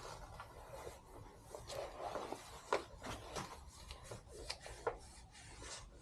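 Faint scattered clicks, taps and short scrapes of metal parts being handled and fitted, as a front brake caliper goes onto a motorcycle.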